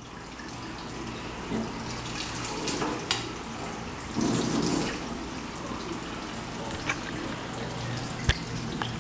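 Kitchen faucet running in a steady stream into a stainless steel sink as a spoon is rinsed under it, with a few sharp knocks.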